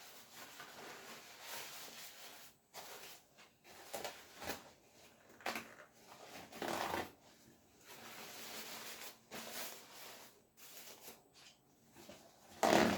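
Kitchen paper towel rustling and crinkling as fresh mint leaves are wrapped in it by hand, with irregular light knocks and scrapes, and one louder knock near the end.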